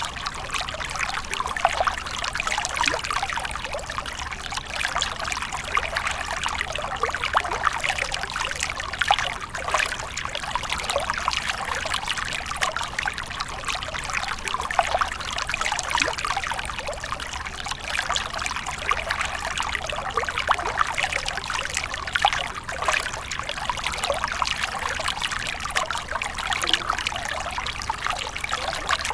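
Water splashing and trickling steadily, a dense, even patter of small splashes.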